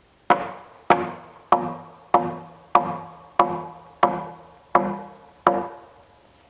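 Hammer knocking loose a wooden guide board nailed to a freshly milled beam: nine even blows about 0.6 s apart, each ringing briefly in the wood.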